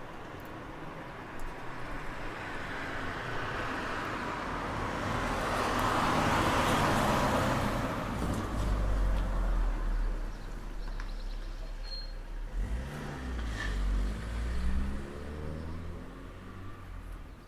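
A car passing by, its engine and tyre noise building to a peak about six or seven seconds in, then fading away. Near the end comes a lower engine sound rising in pitch.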